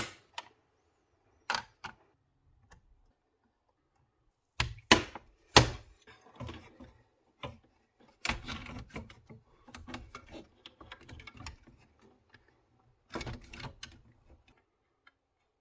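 Sharp clicks, knocks and light clatter of PC parts being handled and fitted into a small case, with the loudest knocks about five seconds in and again a little after eight seconds.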